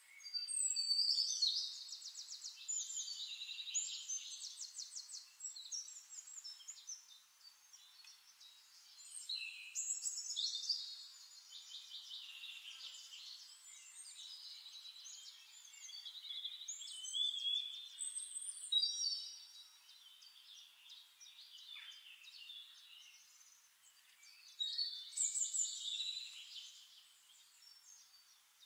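Birdsong: warbling, trilling phrases, each a few seconds long, recurring several times.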